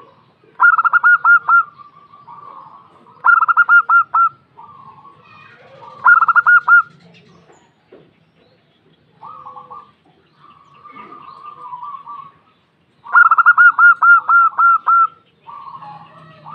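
Female zebra dove (perkutut) calling: four loud bursts of rapid, staccato cooing notes, the last and longest lasting about two seconds, with softer coos between the bursts.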